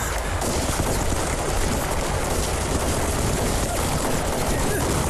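Dense, unbroken gunfire: many rifles and machine guns firing at once in a sustained battle volley.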